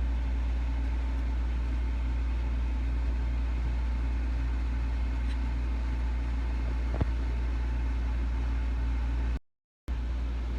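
Steady low hum with a faint click about seven seconds in; the sound cuts out for a moment near the end.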